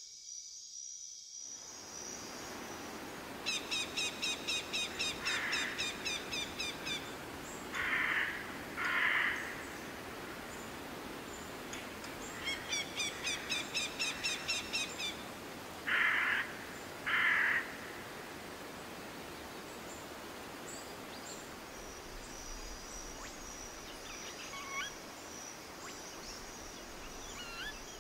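A bird's call, given twice over a steady hiss of background noise: each time a quick run of short high chirps, followed by two short harsher notes.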